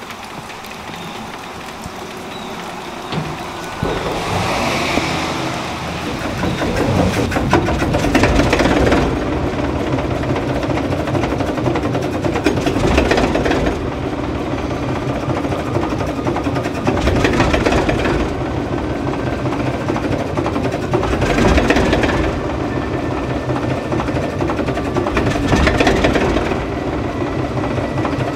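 ALCO RS-1 diesel-electric locomotive, with its six-cylinder turbocharged ALCO 539 engine, running with a steady low rumble. The sound steps up about four seconds in, and a brighter rushing noise swells and fades every four seconds or so.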